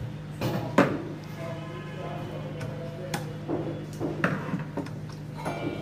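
Several sharp clicks and light knocks as an infrared cooker's small circuit board and its wire connectors are handled and fitted back in place, over a steady low hum.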